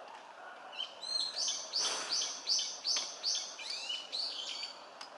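Japanese sparrowhawk calling: a run of about ten sharp, high-pitched notes, roughly three a second, starting about a second in and stopping shortly before the end.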